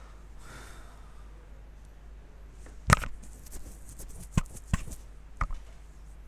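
Computer mouse clicking several times in sharp, short clicks; the loudest is about three seconds in and the others follow over the next two and a half seconds. A faint steady electrical hum runs underneath.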